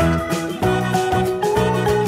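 Background music: a melody of held notes over a repeating bass line.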